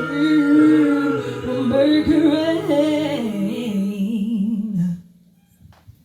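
A woman's voice singing the wordless closing phrase of a slow blues-style ballad, the held note wavering with vibrato and sliding down before stopping about five seconds in. A couple of faint clicks follow.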